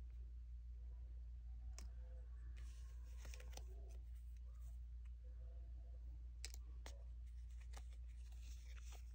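Die-cut stickers being shuffled and handled: soft rustling with a handful of light clicks and taps as the stickers are picked up and set against each other, over a steady low hum.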